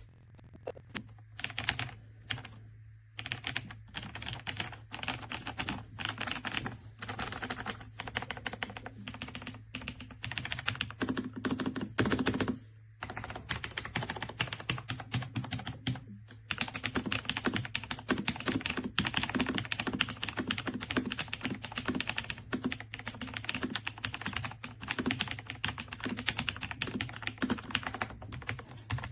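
Fast typing on an AJAZZ AK820 75% mechanical keyboard with soft linear switches: a dense, continuous clatter of keystrokes with a few short pauses.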